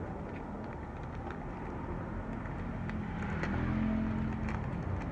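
A motor vehicle's engine running past over a low steady rumble, growing louder from about halfway in, with a steady engine tone near the end.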